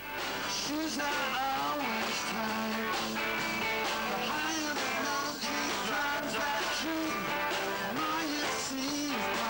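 Live rock band playing: a male lead singer sings a melody over electric guitars and band backing, the music swelling back in after a brief dip at the very start.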